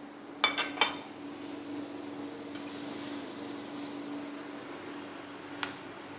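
Steel spoon stirring tomatoes, onions and spices frying in oil in a terracotta handi: three metallic clinks of the spoon against the clay pot about half a second in and another near the end, over a soft sizzle.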